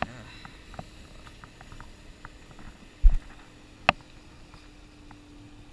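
Hands handling a small fish and a fishing hook close to the microphone: scattered small clicks and rustles, a low thump about three seconds in and a sharp click a second later, over a faint steady hum.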